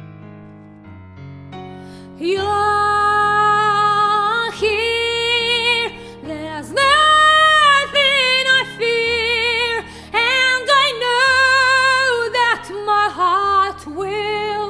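A solo female voice sings long, held notes with a wide vibrato over a soft instrumental accompaniment. The accompaniment plays alone at first, and the voice comes in about two seconds in.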